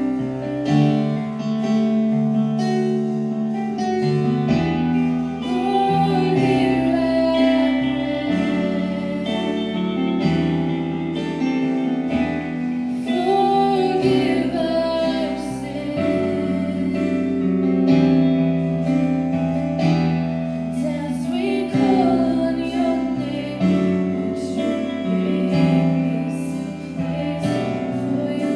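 A live band playing a slow worship song: strummed guitars, bass and drums, with a wavering melody line over the chords.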